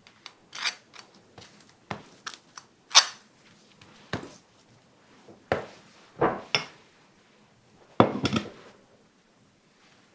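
Food preparation on a cutting board: a table knife scooping and scraping cream cheese onto crusty toasted baguette slices and knocking against the plastic tub, and bread slices set down on the wooden board. These come as scattered scrapes and light knocks, the sharpest about three seconds in and another near eight seconds.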